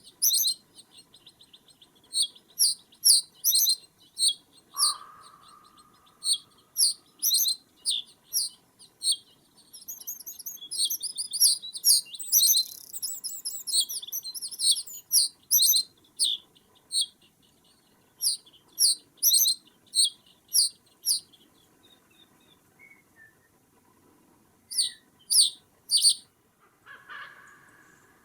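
Small songbirds calling with short, very high-pitched chirps in quick series, thickening into dense twittering in the middle. A lower, single call sounds about five seconds in.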